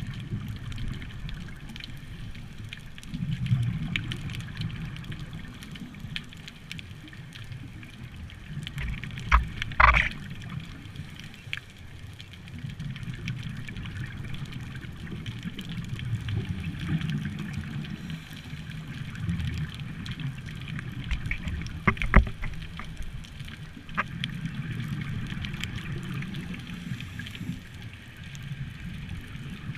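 Underwater sound heard through an action camera's housing: a scuba diver's exhaled regulator bubbles rumbling in swells every several seconds. Sharp knocks or clicks stand out twice, about ten seconds in and again around twenty-two seconds.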